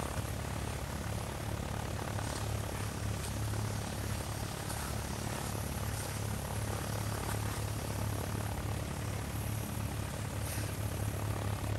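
Steady aircraft-engine drone with a low hum, from the Lego Mindstorms airplane as its pre-programmed animation runs.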